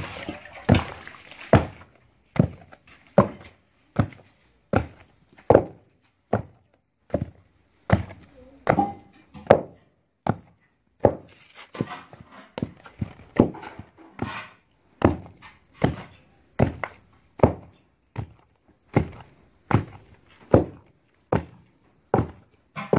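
Wooden pestle pounding boiled cocoyam into achu paste in a wooden mortar: a steady run of dull thuds, a little more than one a second.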